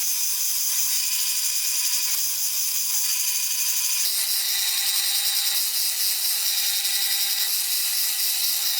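A power tool running continuously in a workshop, with a steady whine over a noisy grinding hiss. About four seconds in, the sound changes abruptly to a brighter, noisier tone.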